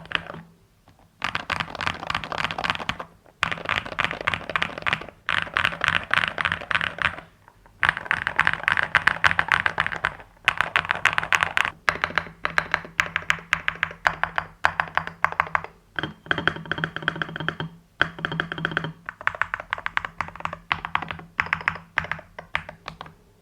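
Fast typing on an EPOMAKER HE75 V2 keyboard with stock Hall-effect Creamy Jade linear switches and ABS keycaps: quick runs of keystroke clacks in bursts of a few seconds, broken by brief pauses. A faint steady low hum sits underneath.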